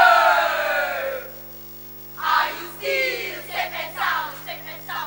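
A choral speaking team of girls reciting in unison: one long phrase that falls in pitch, a pause of about a second, then several short phrases. A steady electrical hum runs underneath.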